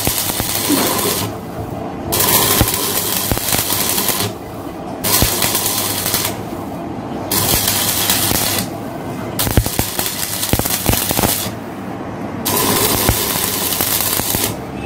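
Workshop noise: a loud hiss that cuts in for about two seconds and drops out for about half a second, over and over, with scattered metallic knocks and clicks.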